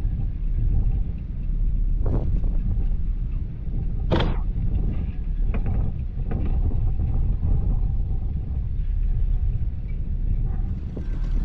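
Steady low rumble with wind buffeting the microphone, and a few light clicks or knocks; the sharpest comes about four seconds in.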